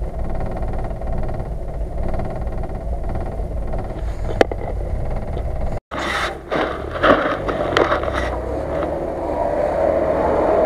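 Off-road vehicle engine running while driving a snowy track, with one sharp click about four seconds in. After a cut, a UAZ-469's engine runs as it works through a muddy ditch, with several knocks and scrapes, getting louder toward the end.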